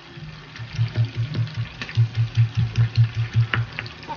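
Stone pestle pounding dried anchovies in a stone mortar: a fast run of dull thuds, about five a second, with a short break partway through.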